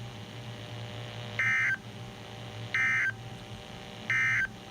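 Three short, buzzy bursts of SAME data tones from a NOAA Weather Radio receiver's speaker, evenly spaced about a second and a half apart, over a low steady hum. The bursts are the end-of-message code that closes the warning broadcast.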